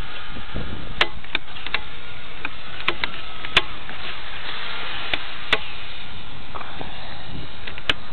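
Wind rushing across a small handheld camera's microphone as a steady hiss, broken by sharp irregular clicks about once a second, with a faint thin whine from a small electric RC foam plane's motor overhead.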